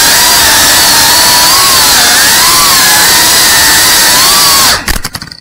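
FPV quadcopter's electric motors and propellers whining loudly, heard from the camera on the drone itself, the pitch wavering up and down with the throttle. Near the end the sound chops up and cuts out briefly.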